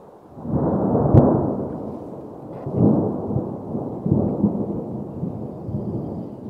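Wind buffeting the microphone in loud, rumbling gusts, with one sharp crack about a second in.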